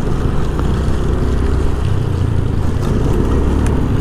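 Vehicle engine running with a steady low rumble while moving, mixed with road and wind noise.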